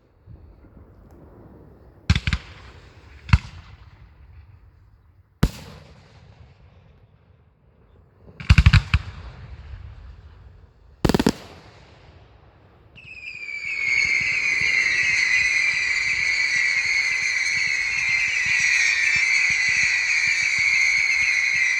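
Fireworks display: a handful of sharp single firework bangs a second or few apart, then about thirteen seconds in a loud, continuous shrill whistling of firework whistles starts and holds.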